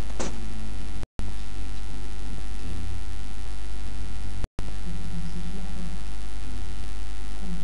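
Loud, steady electrical mains hum picked up on a webcam microphone's recording. The audio cuts out completely for a split second twice.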